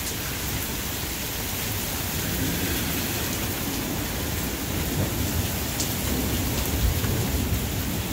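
Heavy rain falling steadily in a thunderstorm, with a low, uneven rumble underneath.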